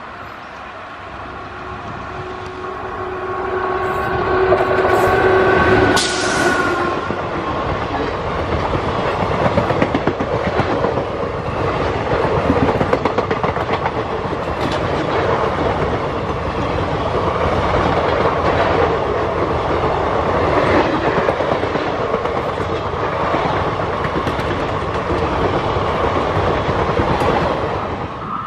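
Electric locomotive air horn sounding a held chord for a few seconds, its pitch dropping as it passes about six seconds in. Then the steady rattle and clickety-clack of a passenger train's ICF coaches running past at speed.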